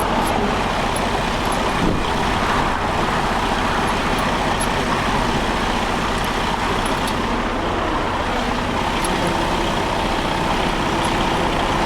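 Steady rush of heavy interstate traffic passing close by, tyre and engine noise from trucks and cars, with a few faint ticks.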